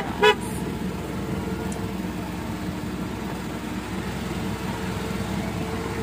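A vehicle horn gives two short, loud beeps right at the start, then a steady low drone carries on.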